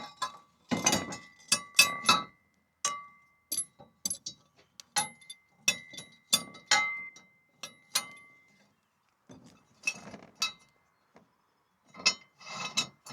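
Steel parts clinking as a threaded rod with thrust bearings on it is fed through a sawmill's hollow lift-crank housing. Many sharp metallic clinks, some leaving a brief ringing tone.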